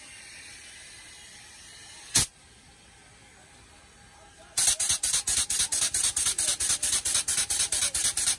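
Air-powered grease gun forcing grease into a steam locomotive's driving-rod crankpin fitting. One short, loud burst comes about two seconds in, and a little past halfway the gun starts pumping in fast, even strokes, about six a second.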